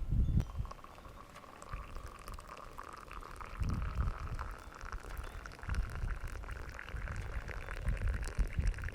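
Liquid pouring steadily into a vessel, its pitch rising slowly as the vessel fills, with irregular low rumbles underneath.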